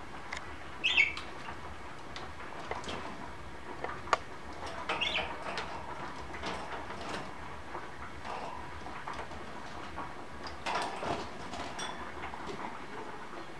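Budgerigars bathing: two short high chirps, about a second in and about five seconds in, among scattered small clicks and taps, with a longer rustling burst around eleven seconds in.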